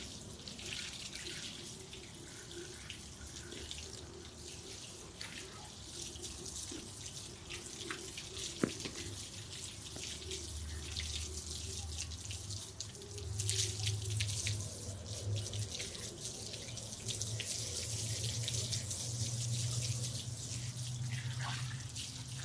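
Running water pouring and splashing onto a dog's coat as he is showered to cool him down. A low steady hum comes in about halfway through, and there is a single sharp click partway.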